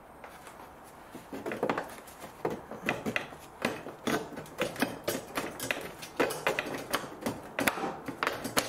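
Hard plastic parts clicking and knocking irregularly as a clipped-together plastic bracket is bent and worked to pull it apart. The clicks start about a second in and come quickly and unevenly.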